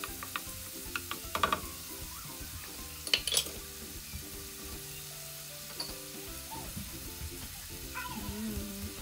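Diced onion and garlic sizzling steadily in hot oil in a stainless steel wok, with a few sharp knocks of a wooden spoon against the pan about a second and a half in and again around three seconds in. Light background music runs underneath.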